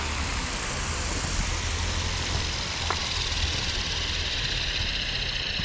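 Align T-Rex 470L electric RC helicopter's main rotor and brushless-motor drivetrain coasting down on the ground with power cut by throttle hold: a steady whirring with a faint whine that sinks slowly in pitch as the blades spin down. A single light tick about three seconds in.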